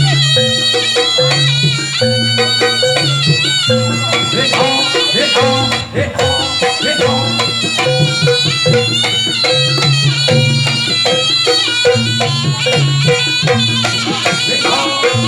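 Javanese jaranan music played by a live ensemble: a shrill, reedy shawm (slompret) melody wavers over a steady repeating beat of drums and gongs.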